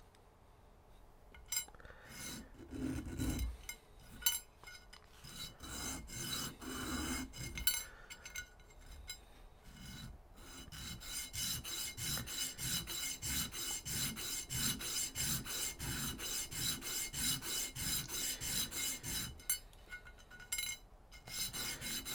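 A brass ring being sanded: scratchy back-and-forth strokes of metal on abrasive. They are irregular at first, then settle into a steady rhythm of about two to three strokes a second from about ten seconds in.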